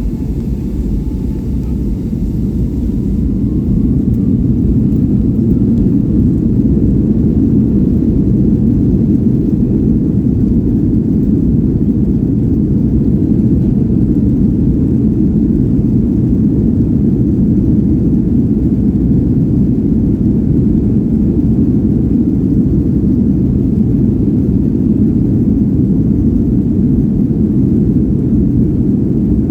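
Boeing 757-200's Rolls-Royce RB211 engines heard from inside the cabin, spooling up to takeoff thrust: a rising whine in the first few seconds, then a loud, steady rumble.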